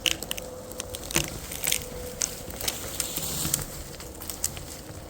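Irregular crunching and crackling of footsteps through frozen leaf litter and twigs, about a dozen sharp crunches, with a faint steady hum underneath.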